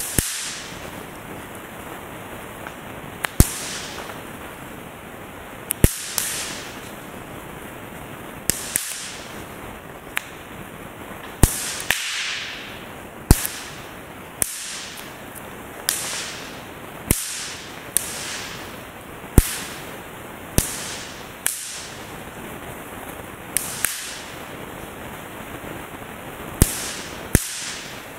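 Snap pops (bang snaps) popped one at a time between the fingers, each a sharp crack followed by a short hiss that falls in pitch. About twenty cracks come at uneven intervals of roughly a second, over a steady background hiss.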